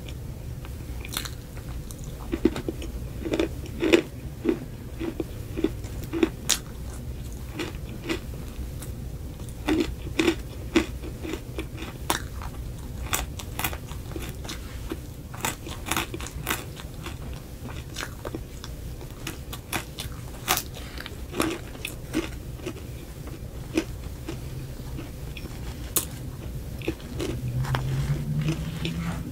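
Close-miked ASMR eating: crisp, irregular crunches and chewing as cereal-topped frosted cupcakes and loose cereal rings are bitten. Near the end a low hum rises in pitch under the chewing.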